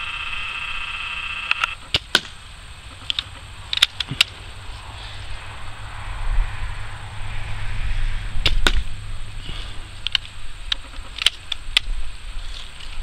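Daisy Red Ryder lever-action BB gun being cocked and fired: a series of sharp snaps and clicks, several in close pairs. A steady high tone stops just under two seconds in, and a low rumble swells in the middle.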